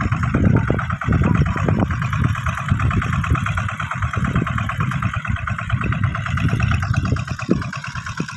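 Single-cylinder diesel engine of a walk-behind two-wheel hand tractor running steadily under load as it pulls a furrowing implement through tilled soil.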